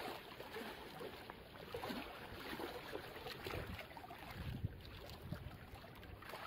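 Faint, steady wash of small sea waves lapping against shoreline rocks.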